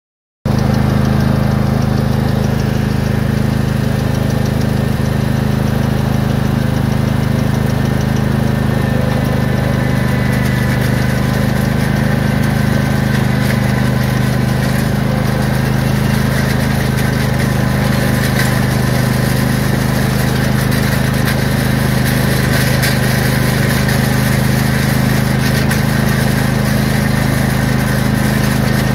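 Craftsman lawn tractor engine running at a steady speed while towing a land plane, with gravel scraping and rattling under the drag.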